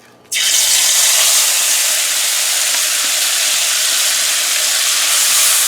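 Wet curry paste of spices and blended garlic mixed with water hitting hot vegetable oil in a pan, bursting into a loud, steady sizzle that starts suddenly just after the start.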